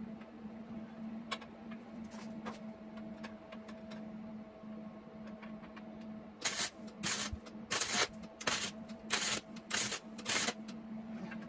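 Wire-feed (MIG) welder welding frame tubing in a run of about seven short bursts, roughly one every half second, starting about six and a half seconds in.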